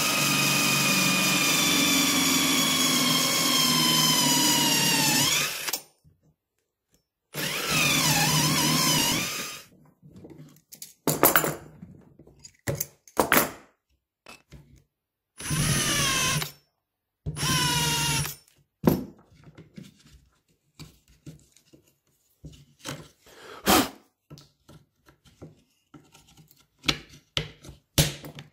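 Cordless drill boring into wood through a drilling jig, its whine sinking slowly in pitch under load before it stops about six seconds in. Several shorter drilling bursts follow with the pitch dipping. Short knocks and clicks come between the bursts and near the end.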